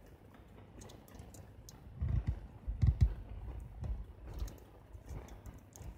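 Handling noise from a Canon A-1 SLR body worked over by gloved fingers: scattered small clicks and rubbing, with a few soft knocks about two to three seconds in.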